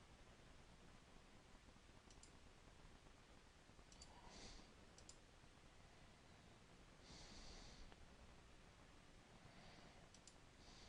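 Near silence: a few faint computer-mouse clicks, some in quick pairs, and three soft breaths into the microphone.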